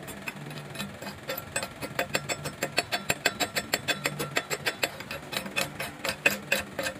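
Chipping hammer tapping slag off a fresh stick-weld fillet bead on steel plate: quick, irregular metallic taps, several a second.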